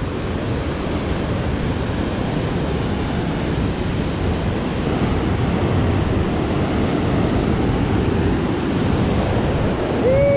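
Steady rush of fast-flowing whitewater from a mountain creek, an even hiss that does not let up.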